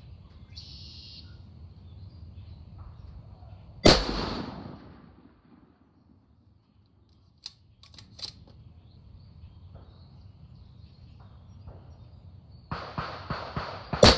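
Two rifle shots from a Masterpiece Arms BA PMR Pro Rifle II bolt-action in 6mm Creedmoor, one about four seconds in and one right at the end, each a sharp crack with about a second of echo. A few faint clicks come between them, and a quick run of clicks comes just before the second shot.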